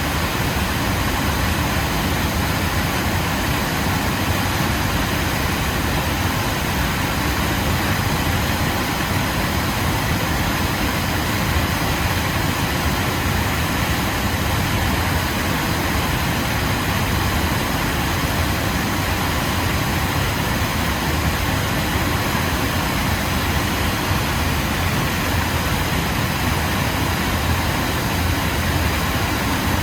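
Waterfall: a steady, unbroken rush of falling water with a deep rumble underneath.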